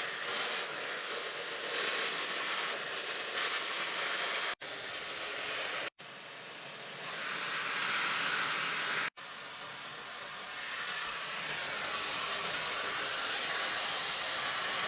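High-speed hair dryer blowing with a steady airy hiss, its strength and pitch shifting as the speed and heat settings are changed. The sound cuts out for an instant three times.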